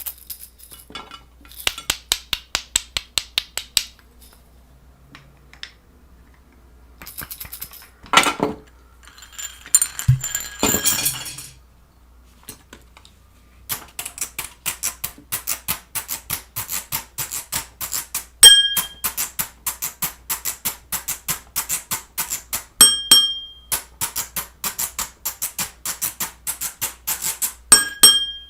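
Rapid runs of sharp mechanical clicks with a few louder clatters. In the second half the clicking runs steadily and a short bell-like ding rings three times, about every four and a half seconds.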